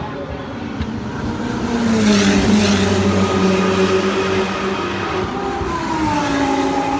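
Racing car engines going past, the engine note dropping in pitch as each goes by. The loudest passes about two seconds in with a rush of noise, and another follows near the end.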